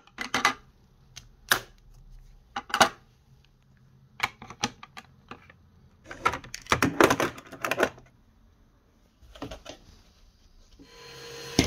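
Makeup compacts and palettes being handled, opened and set down: a string of sharp clicks and clatters, busiest about six to seven and a half seconds in.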